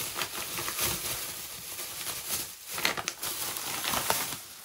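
Plastic grocery packaging rustling and crinkling as it is handled, with irregular small crackles throughout.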